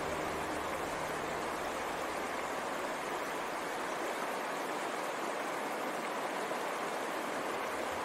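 Steady rush of flowing river water, an even hiss without pauses.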